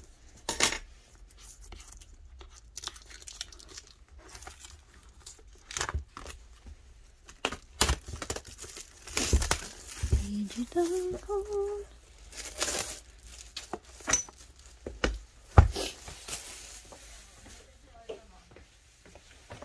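Packaging being torn open and crinkled by hand, with irregular sharp rips and rustles. A short hum of a voice comes a little past halfway.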